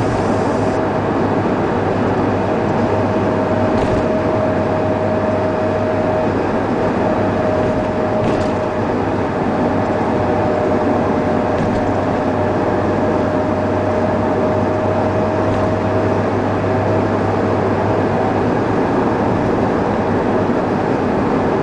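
Steady road and engine noise heard from inside a car cruising on a highway, with a thin steady whine over it for most of the time.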